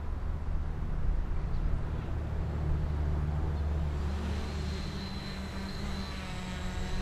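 Quadcopter's electric motors and propellers whining as it flies in. A high steady tone comes in about four seconds in, and a fuller buzz of pitched lines builds from about six seconds, all over a steady low rumble.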